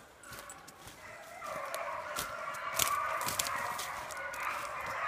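A pack of beagles baying together on the trail of a wild boar, getting louder about a second and a half in. Leaves and twigs crackle underfoot.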